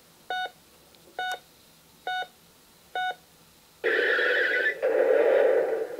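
Electronic sound panel of a toy Ford truck: four short identical beeps about a second apart, then two longer, louder electronic sound effects of about a second each.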